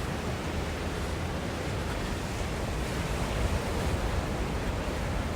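Steady wash of ocean surf breaking on the beach, mixed with wind rumbling on the microphone.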